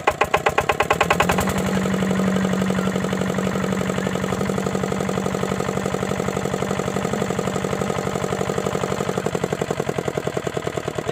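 Kirloskar 5 hp single-cylinder diesel water-pump engine, just hand-cranked, catching and picking up speed over the first second or so as its separate firing beats run together, then running steadily with a fast, even beat.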